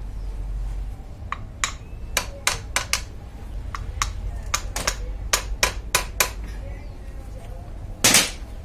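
Irregular sharp taps and knocks, about a dozen in five seconds, over a low steady hum; near the end one louder, longer noisy burst.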